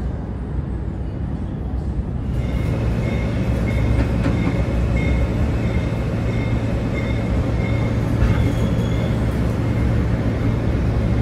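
Subway train running, heard from inside the car: a steady low hum and rumble of wheels on track. From about two seconds in it grows louder and brighter, with short high squeaks coming and going.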